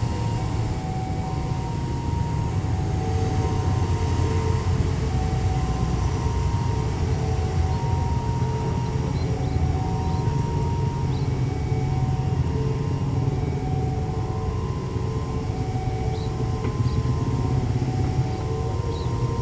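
Airbus A330-900neo's Rolls-Royce Trent 7000 jet engines running with a steady, even low rumble. Alongside it, a faint two-note tone alternates high and low about once a second.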